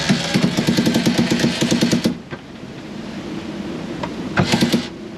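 Sailboat winch ratcheting as it is cranked, tightening a line while the mainsail is reefed: quick, even clicks, about ten a second, for two seconds, then a short second burst near the end, over wind and water noise.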